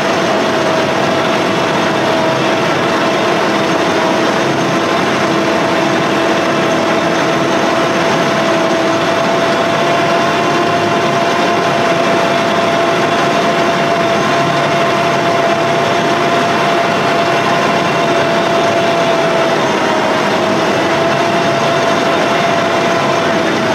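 1945 GMC DUKW amphibious truck's straight-six engine running steadily, heard from inside the cab, with a steady whine over the engine noise.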